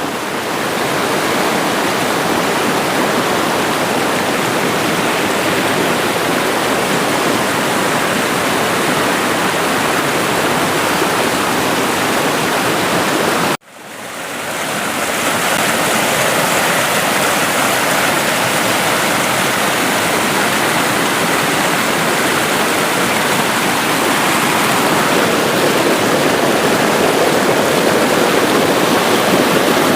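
River water rushing over rocks, a steady loud rush of flowing water. It cuts out abruptly for a moment about fourteen seconds in, then returns.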